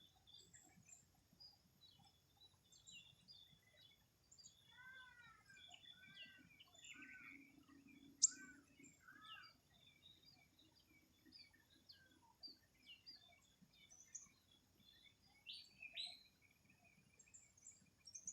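Faint birdsong from several birds: many short high chirps throughout, a run of about five arching whistled notes in the first half, and one sharp, high note about eight seconds in that stands out as the loudest.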